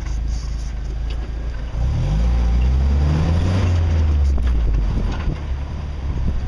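Jeep engine running at low revs, then revving up about two seconds in as it crawls over rock and easing off again about a second and a half later, with a few short knocks.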